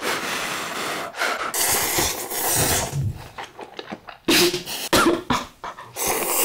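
Cup ramen noodles being slurped off chopsticks: two long, loud slurps in the first three seconds, then a few shorter slurps near the end.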